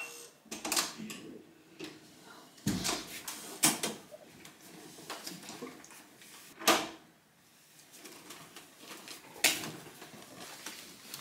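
Handling noises of a person moving about a small room with a canvas tote bag: a few short, irregular rustles and light knocks, the loudest about two-thirds of the way through.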